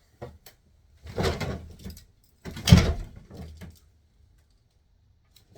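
A part of a bed frame being pulled out by hand, scraping and sliding in two hard pulls about a second and three seconds in, the second louder, with a few small knocks around them.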